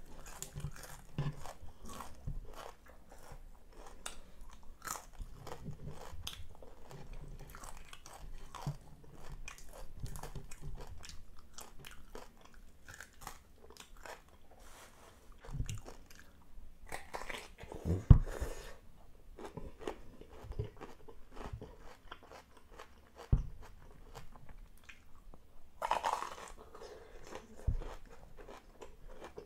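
Close-up chewing of crispy deep-fried tilapia head, the fried bones and skin crunching between the teeth. Dense fine crunching in the first half, sparser later, with a few louder single bites.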